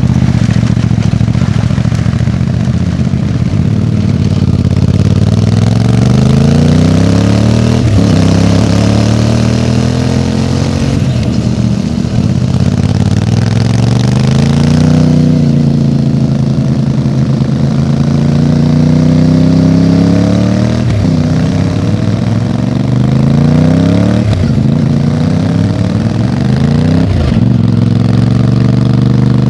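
CFMOTO 450MT motorcycle's parallel-twin engine running through its exhaust, its pitch climbing and falling again and again. Several climbs break off sharply and start low again, and it settles to a steady note near the end.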